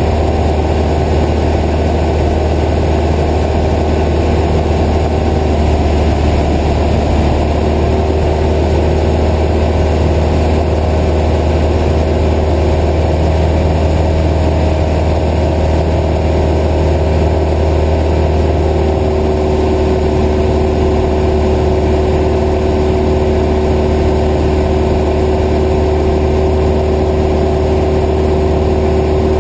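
Cessna 172's piston engine and propeller running steadily in flight: a loud, even drone with a deep hum, its pitch shifting slightly a few seconds in.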